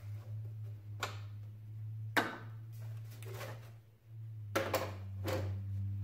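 Plastic engine cover being pulled off a Saab 2.8 V6 turbo: about five hollow knocks and clunks spread over a few seconds as it comes off its mounts, the sharpest about two seconds in, over a steady low hum.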